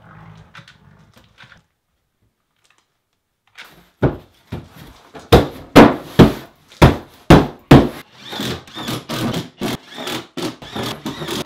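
Open palms slapping a Wedi foam building panel against the wall studs, a run of hard knocks about two a second to seat it in the joint sealant. In the last few seconds a cordless impact driver hammers a screw and washer into the panel.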